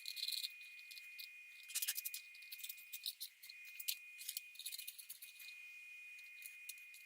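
A wrench and valve cover bolts being worked by hand: faint scattered metal clicks and light rattles, with a few brief scratchy rasps, over a steady faint high tone.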